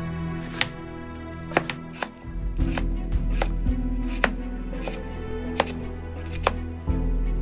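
Kitchen knife dicing carrot on a wooden cutting board: about eight sharp, unevenly spaced strikes of the blade through the carrot onto the board, over background music.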